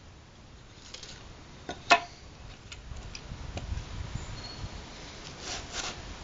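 A hobby knife scraping along a wooden straightedge as it scores a thin white sheet, in repeated rough strokes from about three seconds in. Just before, a single sharp knock as the wooden block is set down on the bench.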